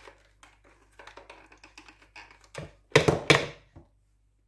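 Light clicking and tapping of kitchen utensils and containers being handled, then a few louder knocks about three seconds in.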